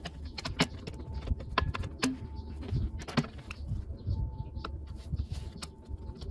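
Irregular metallic clicks and clinks of a brake shoe and its springs being worked into place by hand on a golf cart's rear drum-brake backing plate, over a low rumble.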